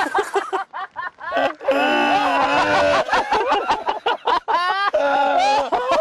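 Men laughing hard in loud, choppy bursts.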